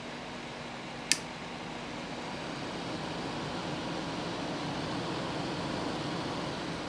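Steady fan-driven air hiss from a soldering station's hot-air gun, swelling slightly midway. A single sharp click about a second in.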